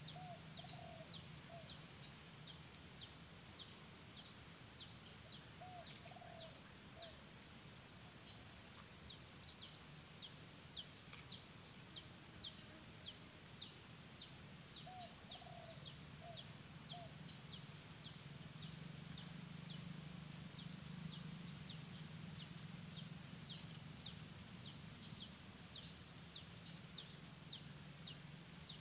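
Faint wild ambience: a steady high-pitched insect drone, with a bird repeating a short, high falling note about twice a second and a few lower calls now and then.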